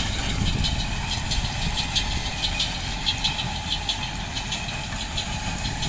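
Tractor engine running steadily as it pulls a small square baler, with the baler's mechanism clacking over and over, about twice a second, as it packs straw into bales.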